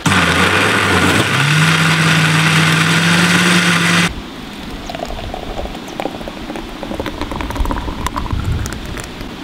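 A loud motor runs for about four seconds, its pitch stepping up about a second in, then cuts off suddenly. Light clicks and knocks follow.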